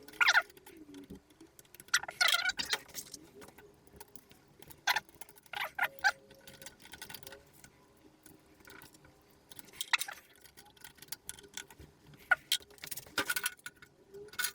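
Hand tools clinking and clattering on metal: a scattered series of sharp clicks and short rattles at irregular intervals, with a longer rattle about two seconds in.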